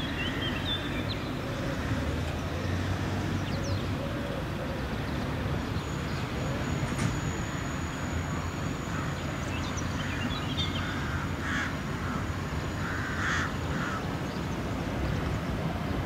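Low rumble of a Citadis tram rolling away on grass-covered track, fading as it goes. Birds call over it, with a few crow caws in the second half and a thin high whine in the middle.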